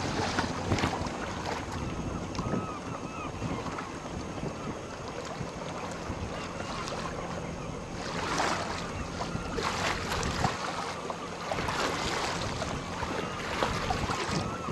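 Wind buffeting the microphone, with water lapping and splashing. The wind comes in gusts, and a few faint short high chirps come through.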